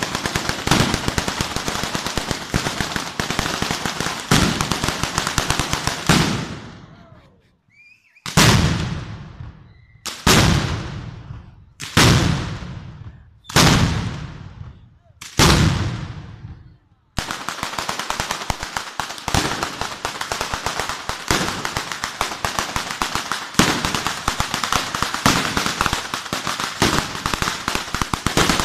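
A ground-level firework batteria of the southern Italian kind, a long chain of firecrackers set off along the street, going off in a dense rapid crackle of bangs. The bangs die away about six seconds in. Five separate volleys follow, each fading out over a second or so, and then the rapid, continuous crackle starts again and keeps on.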